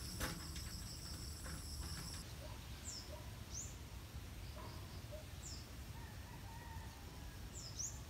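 Faint outdoor ambience with small birds chirping: a few short, high, falling chirps scattered through the second half, over a low steady hiss. A thin high whine stops about two seconds in.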